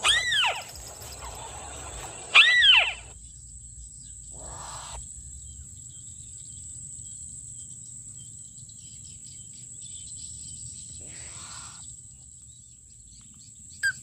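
A crake calling: two loud, arching whinny-like calls about two seconds apart, followed by a couple of brief rustles in the grass. A faint steady high tone runs underneath.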